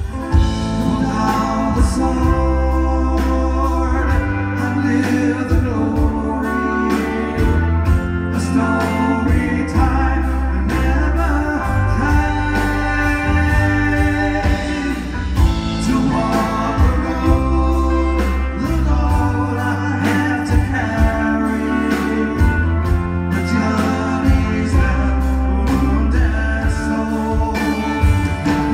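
Live rock band playing electric guitars, bass and drums, recorded from within the concert audience.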